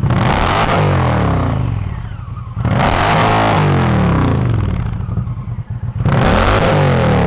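Indian PowerPlus 112 V-twin running through an ARO GP slip-on exhaust, its pitch rising and falling with revs. The sound is loud and deep, and it changes abruptly twice, about two and a half seconds in and again about six seconds in, where one sample cuts to the next.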